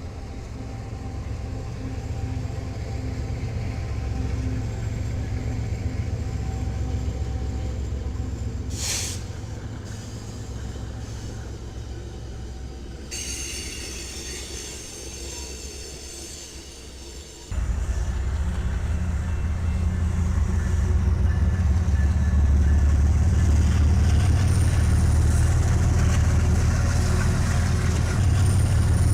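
A train rolling past on the rails, a steady low rumble with some high wheel squeal in the later part. About two thirds of the way through, the rumble suddenly becomes louder.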